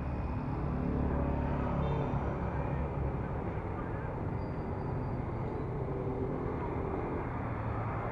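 Steady street traffic: engines of passing motorbikes and cars making a continuous low rumble, a little louder about a second in.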